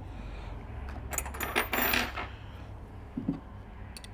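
Small metal parts clinking against a linear-rail carriage as a Zerk grease fitting is threaded in by hand with a small wrench. There is a quick cluster of ringing metallic clicks, a dull knock about three seconds in, and a few light clicks near the end.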